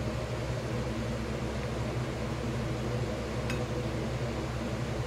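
Steady mechanical hum of a running kitchen appliance, with several low steady tones. Under it a plastic rice paddle stirs rice stuffing in a glass bowl, with one light tick about three and a half seconds in.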